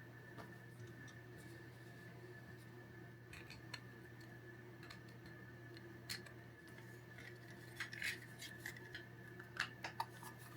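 Faint steady electrical hum with a scattering of small sharp clicks that grow more frequent near the end.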